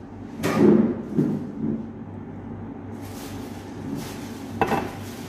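A drinking glass being handled: a few knocks, the loudest about half a second in, and a sharp glass clink near the end as it is set down.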